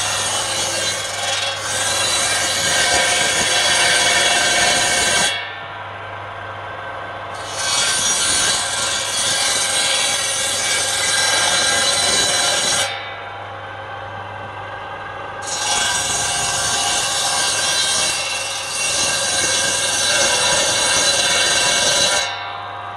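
Circular saw bench ripping lengths of timber in three long cuts of about five seconds each. Between the cuts the blade spins free for a couple of seconds and only the motor's steady hum is heard.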